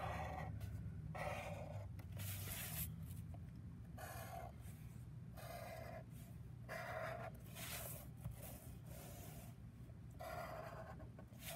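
A black Sharpie marker drawing short lines on paper: a series of brief strokes of the felt tip across the sheet. They come irregularly, roughly one a second.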